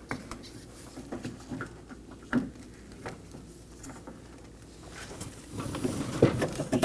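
Scattered plastic clicks and small knocks as a Nissan Maxima's front exterior door handle is worked back and out of the door. There is a sharper click about two and a half seconds in and a busier clatter near the end.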